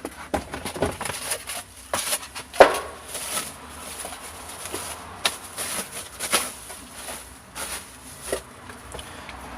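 Parts and packaging being handled by hand: irregular light clicks, knocks and rustling, with one sharper knock a little under three seconds in.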